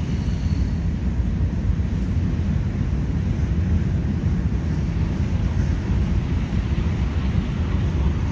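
Freight train rolling slowly past, a steady low rumble with no sudden knocks or horn.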